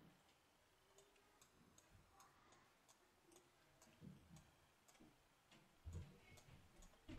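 Near silence with faint, scattered clicks and a few soft low thumps, about 4 and 6 seconds in.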